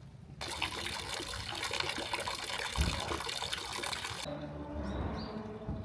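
Water running and splashing steadily, starting about half a second in and cutting off abruptly a little after four seconds in.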